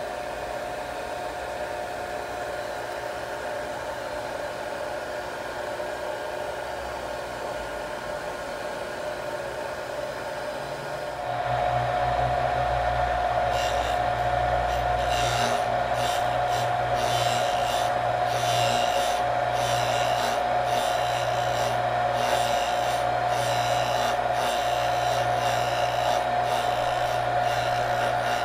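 Lyle drill grinder's motor running with a steady hum. About eleven seconds in it gets louder and the wheel grinds the flute of a three-flute drill bit, with repeated scraping strokes as the drill is swung back and forth across the wheel.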